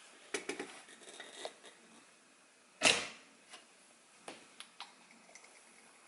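Small clicks and taps of objects being handled, with one sharp, louder knock about three seconds in and a few light ticks after it.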